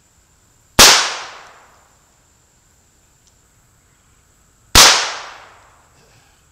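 Two shots from an H&R 926 .22 LR revolver, about four seconds apart, each sharp crack ringing out for about a second.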